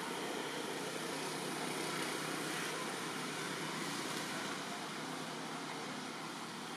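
Steady outdoor background hiss, even and unbroken, with no monkey calls standing out.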